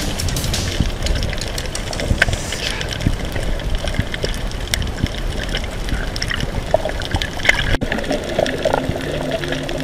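Underwater ambience as heard by a camera below the surface: a steady rush of water noise dotted with many sharp little clicks. Near the end the sound cuts off abruptly for an instant, and low steady tones come in under the water noise.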